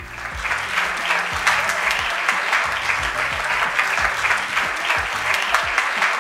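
A crowd applauding steadily, fading out near the end, with music playing quietly beneath.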